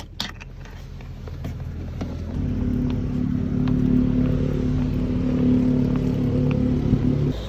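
Steady low hum of a running vehicle engine that swells about two seconds in and cuts off abruptly near the end.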